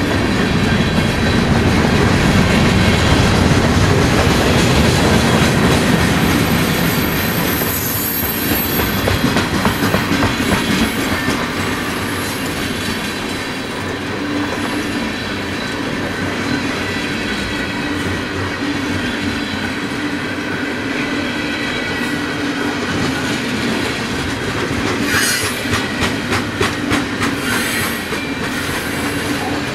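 Freight train tank cars rolling past close by: a steady rumble of steel wheels on rail with clickety-clack over rail joints. A brief high wheel squeal comes about eight seconds in, and a run of sharp clicks comes near the end.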